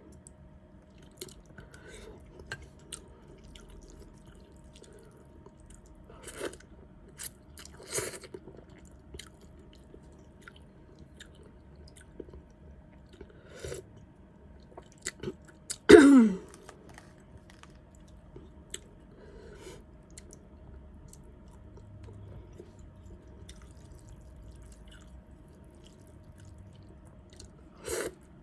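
Close-up mouth sounds of someone eating noodle soup: soft, scattered chewing clicks. About halfway through there is one louder sound that falls in pitch.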